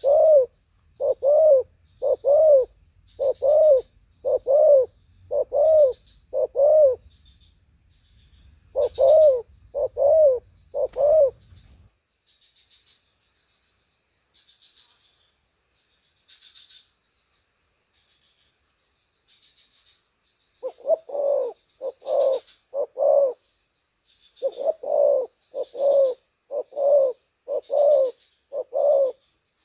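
Spotted dove cooing: a quick, even run of short coos, about three every two seconds. It breaks off for about nine seconds midway, then starts again. Faint high chirping goes on in the background throughout.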